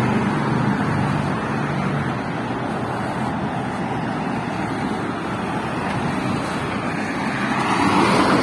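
Road traffic on a wet road: a steady wash of engine hum and tyre noise, with a vehicle passing close and louder near the end.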